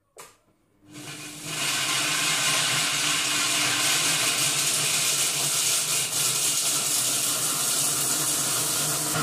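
Monsieur Cuisine Connect food processor blades chopping dry biscuits into crumbs. It starts with a short click, then the motor ramps up in about half a second to a loud, steady run at speed climbing toward 10.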